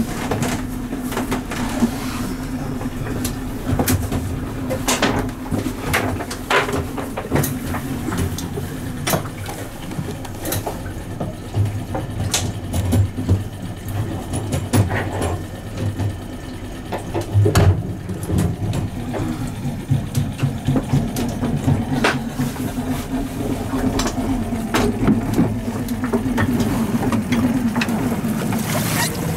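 Steady low engine hum, with frequent knocks, bumps and clatter of movement inside a small boat's fibreglass cabin.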